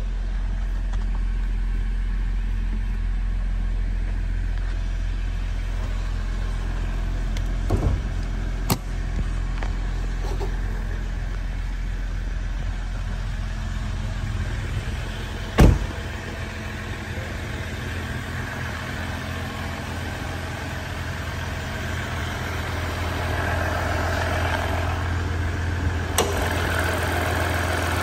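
The Jeep Grand Cherokee's 3.0-litre V6 turbodiesel engine idling with a steady low hum. A few sharp clicks and one loud thud about halfway through break it.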